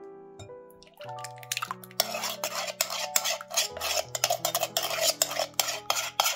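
Metal spoon scraping thick coconut milk out of a tin can into a glass bowl: a quick, dense run of scrapes and clinks starting about a second and a half in and stopping near the end, over soft background music.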